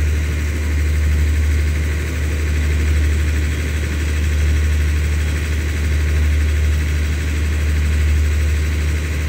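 Diesel engine of a standing express train idling: a steady, loud low drone that does not change.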